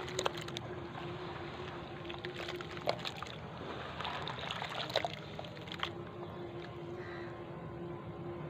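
Hands squeezing and rubbing crumbling lumps of sand-cement under water in a plastic basin, close to the microphone: sloshing and crackling, with a few sharp clicks. A steady low hum runs underneath.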